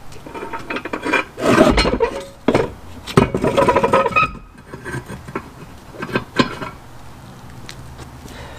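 SnowSport HD utility plow being shifted by hand on its front-hitch bracket from transport to plowing position: two loud bursts of metal clanking and scraping with a ringing rattle, about a second in and around three seconds in. Lighter knocks and footsteps on pavement follow.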